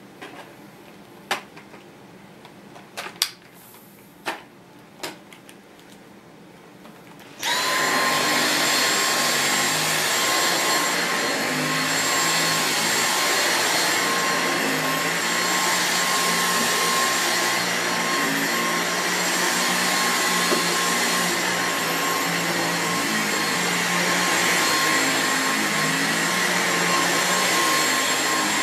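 A few sharp clicks, then about seven seconds in a Dyson V6 Absolute cordless stick vacuum switches on and its motor spins up at once to a steady high-pitched whine. It runs on steadily while the direct-drive floor head is pushed over carpet.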